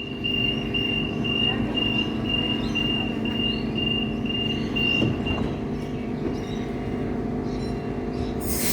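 Electric suburban train at the platform humming steadily, with a high-pitched warning beep repeating about twice a second for the first five seconds before it stops. A loud hiss starts suddenly near the end.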